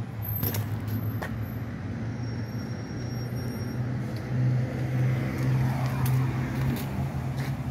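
A motor vehicle engine running, a steady low hum that grows louder for a couple of seconds midway.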